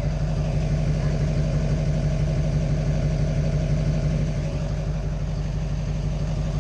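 Vehicle engine idling steadily, heard from inside the cab.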